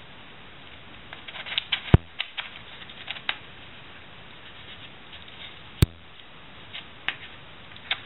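Plastic Latch Pyraminx puzzle being turned by hand: a run of small clicks and rattles as its faces twist, with two sharper, louder clicks about two and six seconds in.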